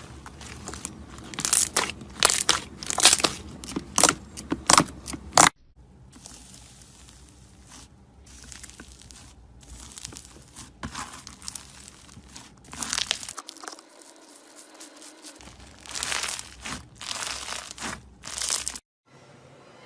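Slime being squeezed, pressed and pulled by hands, making a run of crackling, crunching and tearing sounds. The sound changes abruptly several times as one clip gives way to the next.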